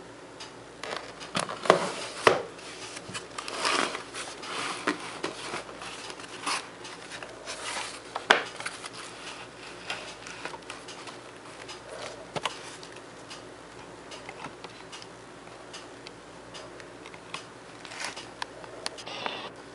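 Shoebox and its paper being handled: irregular clicks, taps and brief rustles, busiest in the first few seconds and again near the end.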